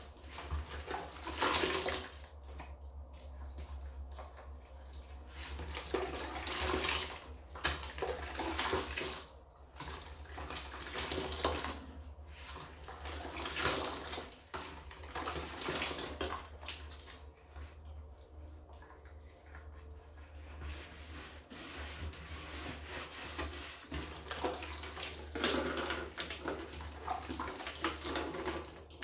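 Rubber-gloved hands scrubbing a garbage can in soapy water in a bathtub: wet swishing and sloshing in uneven strokes, louder near the end as the suds are splashed about.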